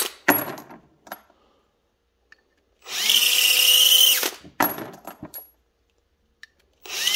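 Cordless drill spinning a case-mouth deburring and chamfer tool in short bursts of about a second and a half, each one with a whine that rises as the drill spins up, as 6.5 Creedmoor brass cases are chamfered one at a time. Between bursts come a few sharp metallic clicks as the finished brass cases are dropped into a plastic pan.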